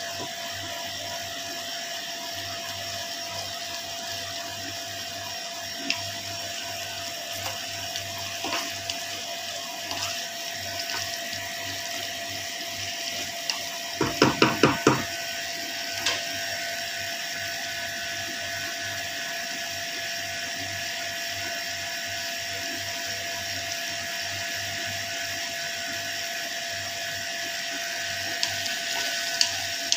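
Chicken and peppers simmering in sauce in a frying pan on a gas stove: a steady sizzling hiss under a steady hum. About halfway through, a quick run of five sharp knocks.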